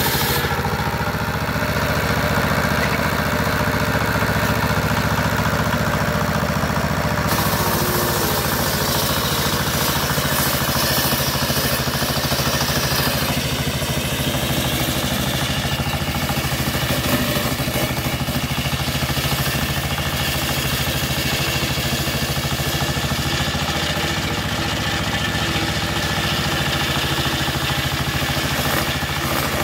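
Stationary single-cylinder diesel engine running steadily, driving a circular table saw that rips a sonokeling (Indian rosewood) plank; the blade's cutting noise sits over the engine and shifts as the board is pushed through.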